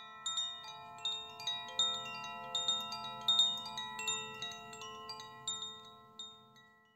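Wind chimes ringing, with many irregular overlapping strikes and long ringing tones at different pitches. The strikes thin out and fade near the end.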